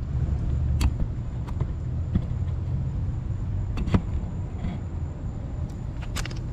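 Handling noise from a GoPro being set down and adjusted on railway ballast: scattered sharp clicks and knocks, the loudest about four seconds in, over a steady low rumble.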